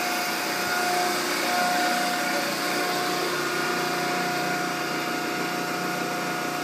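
Steady whir of running shop machinery, an electric motor or pump, with a constant high whine over a broad hiss.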